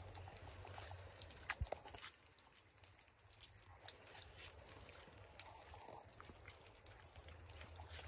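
Near silence, with faint scattered crackles and clicks and one sharper knock about one and a half seconds in.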